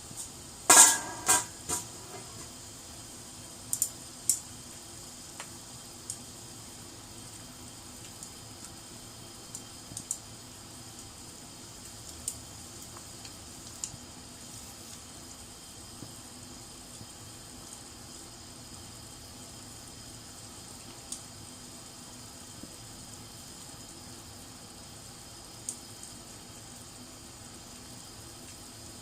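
A pan sizzling steadily, with scattered sharp pops every second or two. Near the start, a few loud clanks of a metal utensil or pan ring out.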